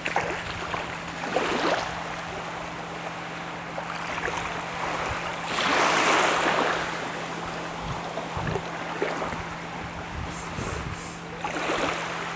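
Outdoor ambience: a rushing noise that swells and fades, loudest about six seconds in and rising again near the end, over a steady low hum.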